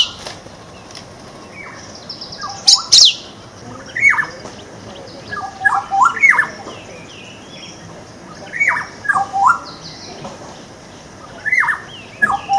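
Songbirds singing and calling: short whistled phrases of quick up-and-down notes repeat every second or two, with a louder burst of sharper, higher notes about three seconds in.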